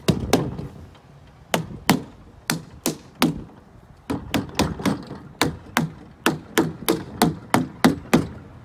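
Rubber mallet tapping an aluminum window frame down over the gasket on the edge of a double-pane glass unit: a run of short, sharp knocks, a brief pause about a second in, then steady taps about three a second, working along the frame.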